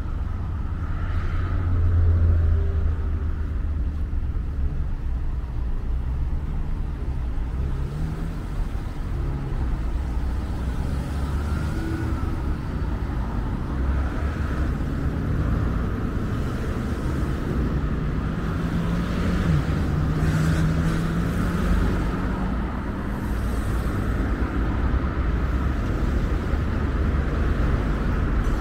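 Road traffic noise: a steady rumble of cars driving by, with engine hums drifting slightly in pitch.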